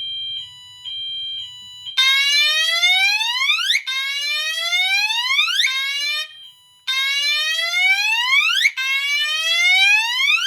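Wheelock MT multitone fire alarm horn sounding its slow whoop: repeated rising sweeps about two seconds each, starting about two seconds in, the third one cut off partway with a short gap after it. Before the whoops, a steady tone beeps about twice a second.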